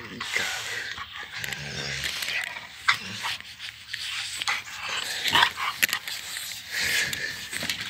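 Pit bull panting with its mouth open while a cotton T-shirt is pulled over its head, the cloth rustling. A couple of short, sharp sounds stand out, about three and five seconds in.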